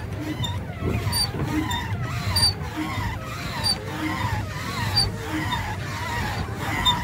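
Pedal boat's pedal crank squeaking with each turn of the pedals, a wavering squeal repeating about every second and a quarter over a low rumble.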